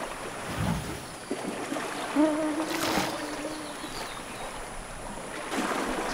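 Water sloshing and splashing around water buffaloes wallowing in a muddy pond, with a short splash about three seconds in and a brief low tone just before it.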